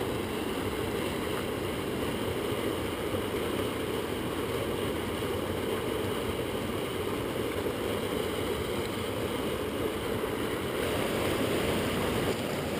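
Mountain stream rushing in whitewater over granite boulders, a steady churning roar that swells a little louder near the end.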